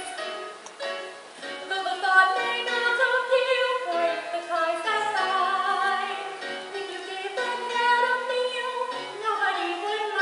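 A woman singing a slow show tune with sustained, wavering notes over instrumental accompaniment.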